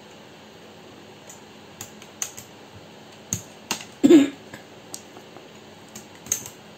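Plastic keycaps clicking and clacking as they are handled: scattered light clicks, with one louder short clatter about four seconds in.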